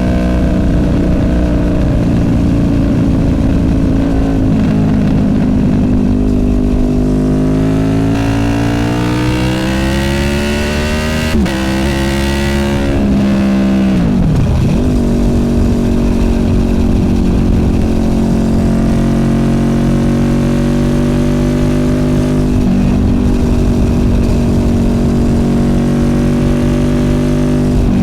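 Honda VFR800F's V4 VTEC engine through an SC Project Conic exhaust, riding on the road: the engine note climbs steadily in pitch under acceleration, dips sharply and recovers about halfway through, then holds a steady pitch at cruise.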